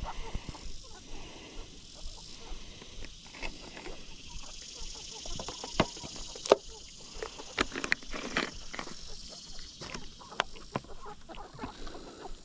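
A flock of chickens scratching and pecking in dry wood-chip compost: irregular sharp clicks and rustles, with occasional soft clucks.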